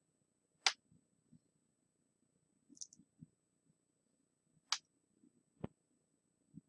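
Faint computer mouse clicks, about four isolated clicks spread a second or two apart.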